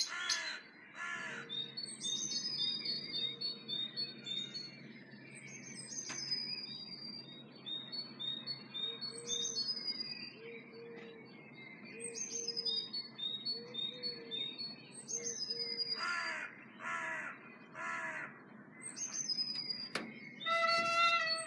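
A spring dawn chorus of several birds. One songbird repeats a short high, falling phrase about every two seconds throughout; a run of low, evenly spaced notes comes in the middle; and harsh, falling calls sound a few times near the end.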